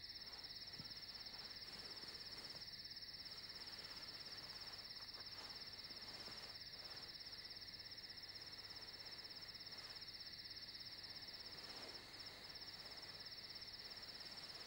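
Faint crickets chirring steadily in a continuous high, rapidly pulsing trill.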